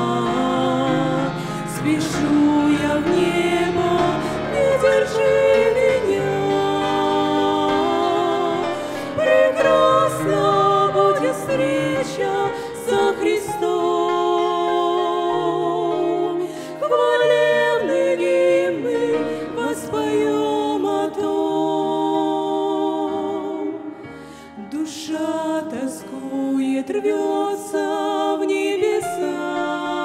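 Two women singing a slow duet into handheld microphones over an accompaniment of held low notes, dropping briefly softer near the three-quarter mark.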